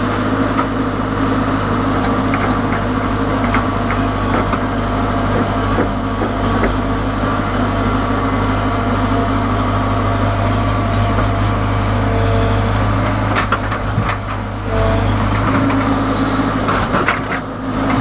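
ACE backhoe loader's diesel engine running steadily under hydraulic load as the backhoe digs. Scattered knocks and scrapes come from the bucket working through stony soil, more of them near the end.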